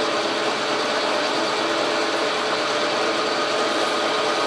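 Logan metal lathe running steadily with a hum from its drive and gears and a few held tones, turning down a 2-inch aluminium rod.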